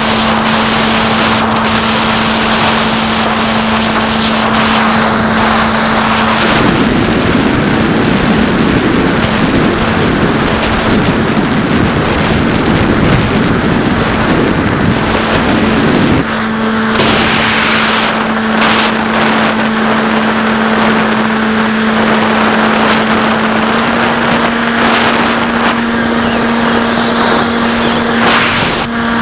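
Electric motor and pusher propeller of a SkyHunter FPV plane droning at one steady pitch, with wind rushing over the onboard camera. About six seconds in the drone drops out, leaving only the rush of wind. It comes back about ten seconds later and steps slightly higher near the end.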